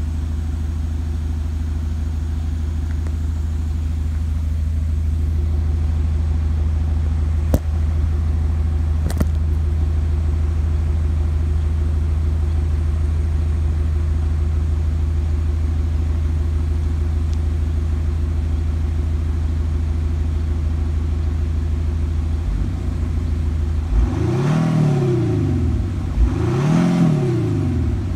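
Audi A6 Allroad BiTDI's 3.0-litre V6 twin-turbo diesel idling steadily at the tailpipes, then revved twice near the end, each blip rising and falling back to idle.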